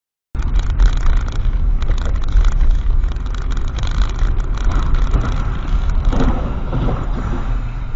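Cabin noise of a car driving on a wet road, picked up by a dashcam microphone: a steady low rumble with hiss. It cuts in abruptly just after the start.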